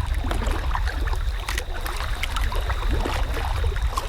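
Wind buffeting the microphone in a steady low rumble, over scattered small splashes and drips of water from a kayak paddle.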